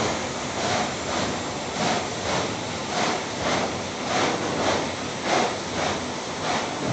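Water spraying inside a TEPO-AUTO TP-1201-1 tunnel car wash: a steady hiss of spray that swells into a whoosh about twice a second.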